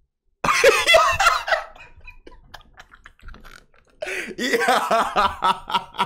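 A man's fit of laughter mixed with coughing. A loud outburst comes about half a second in, then quieter sputters, then a second outburst that breaks into quick, rhythmic pulses near the end.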